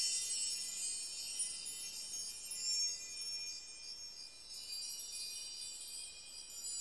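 Soft, high-pitched chimes tinkling in a continuous shimmer, like wind chimes.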